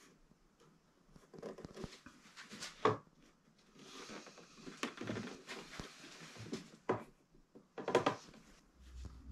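Pallet-wood boards of a door frame being handled and fitted together on a workbench: irregular wooden knocks and sliding scrapes, the loudest knock about three seconds in.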